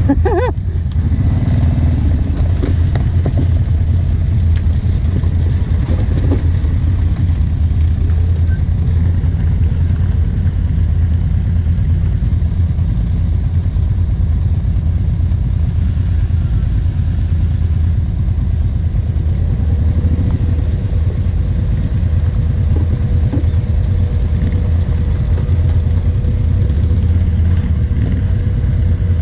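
Kawasaki KVF 750 Brute Force quad's V-twin engine running at a steady low drone while crawling along a muddy trail, heard from on board.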